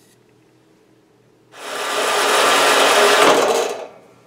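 Horizontal metal-cutting bandsaw cutting steel bar stock: a loud, even rasping noise that starts about a second and a half in, runs for about two and a half seconds and fades out near the end.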